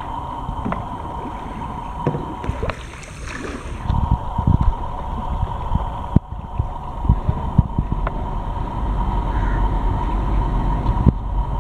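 Kayak paddle dipping and splashing in the water in irregular strokes, over a faint steady whine. From about a third of the way in, a heavy low rumble on the microphone with scattered knocks.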